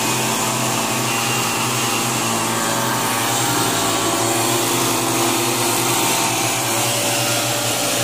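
Motorized backpack mist blower sprayer running steadily at high speed: its small engine drones under the rush of the blower fan as it sprays weedkiller.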